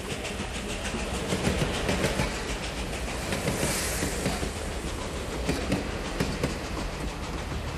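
Passenger train running over a steel truss bridge: a steady rumble with rapid, irregular clicking of the wheels over the rail joints.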